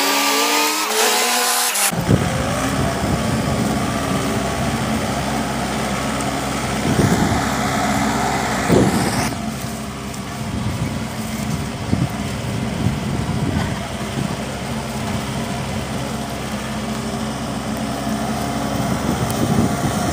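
Diesel engine of a JCB 3DX backhoe loader running steadily under load, with a few brief louder surges of revving.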